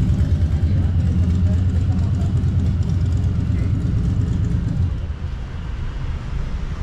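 Motor vehicle engine, a steady low rumble that eases off about five seconds in.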